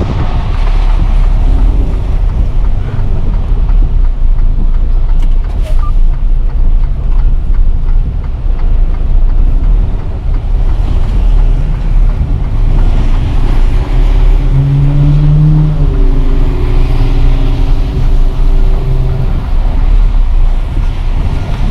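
Semi-truck diesel engine running at low speed while the tractor-trailer reverses into a driveway, a steady low rumble throughout. In the second half a steadier engine note comes up, strongest about fifteen seconds in, as the engine works under load during the manoeuvre.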